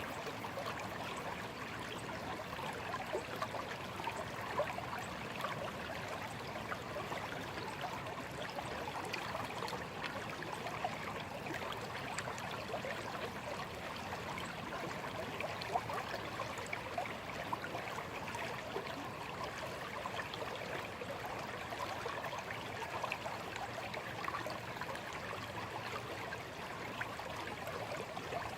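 Shallow stream flowing steadily, with a continuous bubbling and trickling over stones.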